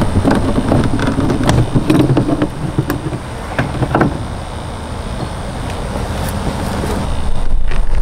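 Plastic top cowling of a Suzuki four-stroke outboard being worked loose and lifted off by hand: a run of knocks, clunks and rattles in the first few seconds. Underneath is a steady low rumble that swells near the end.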